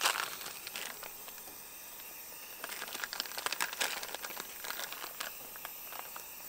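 Food packaging crinkling and rustling in the hands as a package of sausages is opened and handled, with a sharp click at the start and irregular crackles throughout.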